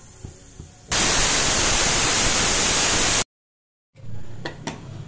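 Usha aluminium pressure cooker whistling: steam forced out past the weight valve as a loud, steady hiss. It starts abruptly about a second in, lasts about two seconds, and cuts off suddenly into a moment of dead silence.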